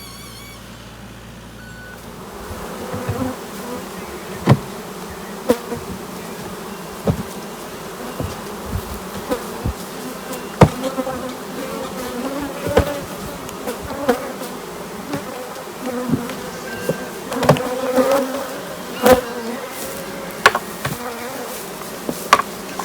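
Many honey bees buzzing in the air around opened hives, a steady drone that swells in about two seconds in. Irregular sharp knocks and taps cut through it every second or so.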